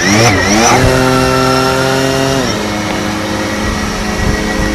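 DJI Phantom 4 quadcopter's motors and propellers buzzing loudly as it flies: the pitch rises quickly at the start as it throttles up, holds steady, then drops to a lower steady pitch about halfway through.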